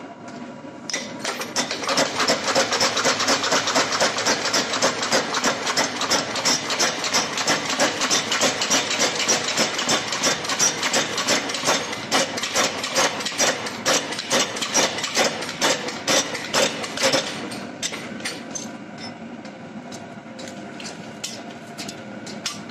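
Power hammer pounding a red-hot Damascus steel billet: a rapid, even run of about five blows a second for roughly sixteen seconds, then a few slower single blows. A steady machine hum runs underneath.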